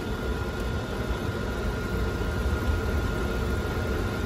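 Automatic ramen-cooking machine boiling instant noodles in a paper bowl: a steady rumbling bubble of boiling water with a thin steady whine from the machine.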